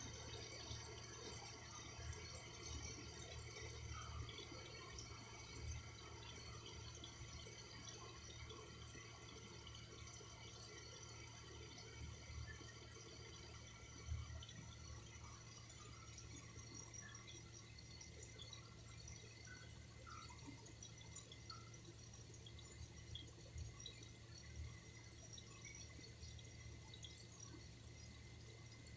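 Faint running water with scattered small drips, over a steady low hum.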